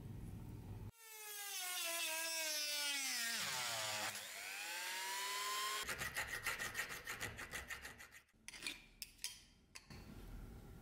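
Hand hacksaw cutting a brass block held in a bench vise, with a couple of seconds of quick rasping strokes. Before it, a small power tool's motor runs, its pitch sliding down and then back up before it stops. A few sharp metal clicks come near the end.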